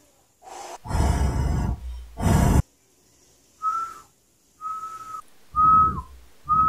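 A man whistling four short notes at one steady pitch, each held well under a second, the last two falling off at the end. Before the whistles come two loud breathy rushes of noise.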